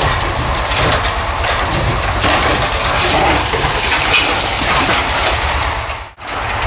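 Hydraulic grapple of a scrap-metal crane truck crushing and tearing a car body: irregular metal crunching, cracking and scraping over the steady running of the truck's engine. The sound drops out for a moment about six seconds in.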